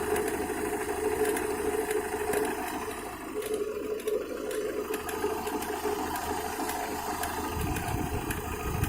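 Opel Astra G 1.6 16-valve petrol engine running with an irregular knocking rattle from the lower timing-belt side, like a loose piece of metal or a bolt thrashing about. The owner suspects the water pump, a broken impeller or bearing. A low rumble comes in near the end.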